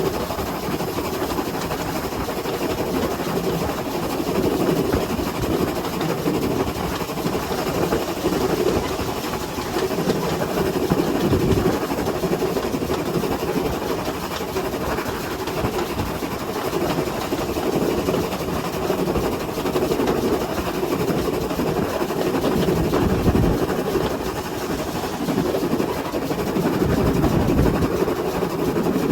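Pannier tank steam locomotive 7714 under way: a steady running rumble of the engine and its wheels on the rails, swelling and easing slightly.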